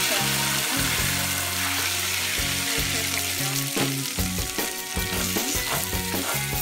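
Whole almonds sizzling in hot oil in a small saucepan. From about halfway, the pan is shaken and the almonds clatter in the oil with short clicks over the hiss.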